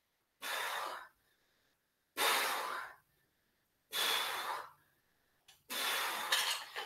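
A woman breathing hard from exertion during squats: four forceful breaths about every two seconds.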